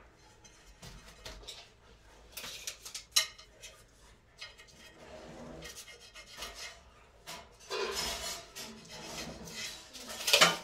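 Irregular rubbing and scraping noises in short bursts, with a sharp click about three seconds in and the loudest scrape just before the end.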